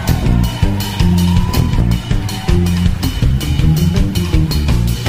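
Live ska band playing an instrumental passage: electric guitar, bass guitar and drum kit on a steady beat, with no vocals.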